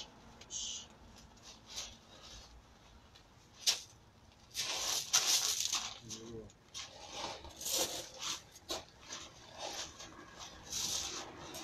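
Feet scuffing and crunching on loose gravel in quick, irregular bursts, with a single sharp click a little under four seconds in.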